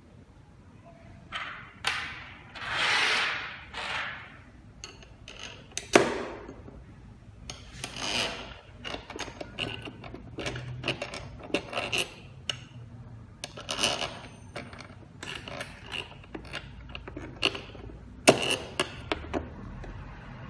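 Irregular clicks, knocks and scraping of fingerprint door lock parts being handled and fitted, with a stretch of rubbing about two to four seconds in and sharp knocks about six seconds in and near the end.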